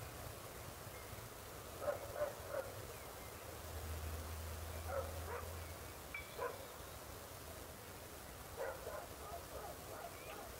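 A dog barking in short runs of two or three barks, with a longer run of barks near the end. A low hum rises for a couple of seconds in the middle.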